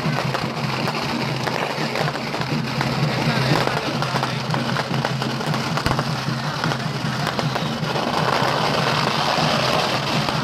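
Strings of firecrackers crackling densely and without pause, over music and a steady low tone.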